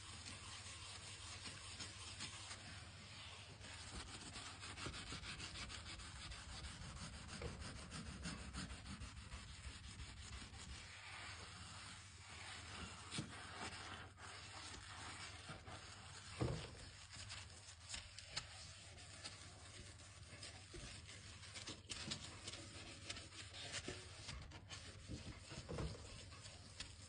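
Steady scrubbing of a surface in quick repeated strokes, with a single knock about sixteen seconds in.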